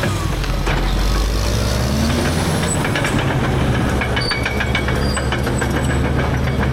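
Caterpillar D6R dozer's C9 diesel engine running steadily, its note dipping at the start and rising again about two seconds in, with a dense run of clicks and cracks from about three seconds in as the root rake works through stumps and brush.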